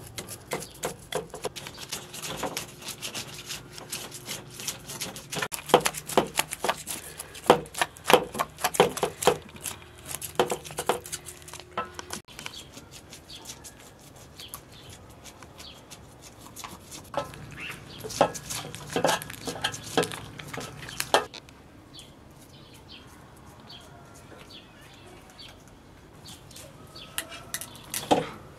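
Knives scraping scales off whole fish: quick rasping strokes in bursts, with sharp knocks and clinks of the blade on a wooden chopping block and a metal tray. The strokes are dense for the first part, come in another burst past the middle, then thin out to scattered light ticks.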